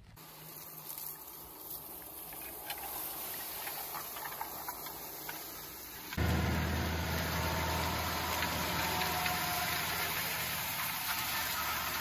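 For the first six seconds, an electric tractor pulling a disc harrow through crop stubble: no engine note, only soil and stubble rushing past the discs with scattered rattles and clicks. About six seconds in, an abrupt cut to a diesel John Deere tractor pulling a disc cultivator, its engine droning steadily and noticeably louder under the load.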